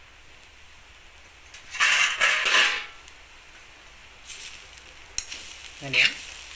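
Metal spatula scraping and stirring cooked leafy greens in a black kadhai over a wood fire, in two bursts about two seconds in and again at about four and a half seconds.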